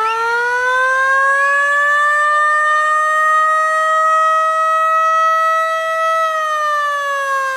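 A siren wailing: its pitch climbs for the first two seconds, holds a steady high note, then starts to fall about six seconds in.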